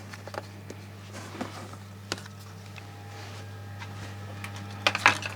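Small objects being handled: scattered light clicks and rattles over a steady low hum, with a sharper cluster of clicks near the end.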